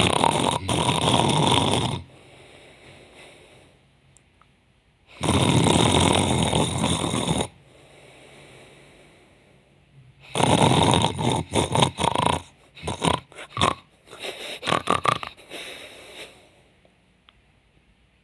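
A woman fake-snoring loudly. There are three long snores a few seconds apart, with quiet breaths between them. Then comes a run of short, broken snorts that trails off.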